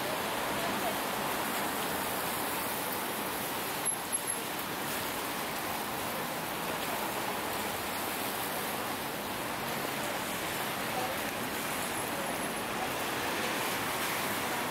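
Steady hiss of city street traffic on a road, an even wash of noise with no distinct engine, and a few short sharp ticks about four seconds in.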